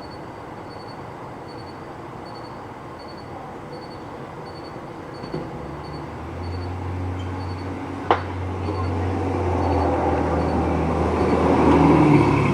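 A low motor-vehicle engine drone comes in about six seconds in and builds, loudest near the end. About eight seconds in there is one sharp bang.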